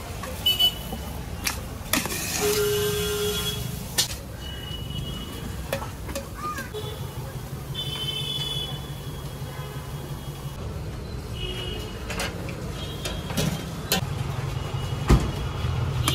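Busy street traffic running steadily, with short car horn toots and a few sharp knocks and clinks, like metal pots and plates being handled.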